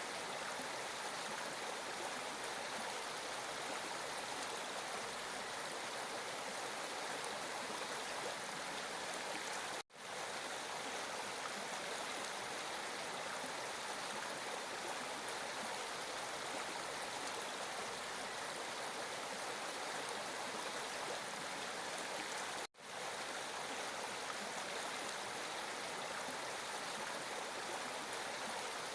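Flowing water rushing steadily, a continuous even splash and hiss. It cuts out to silence for a moment twice, about ten seconds in and again past twenty seconds, and fades straight back.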